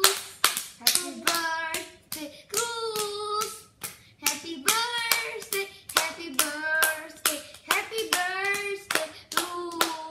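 Two young children clapping their hands in rhythm, about two claps a second, while singing along.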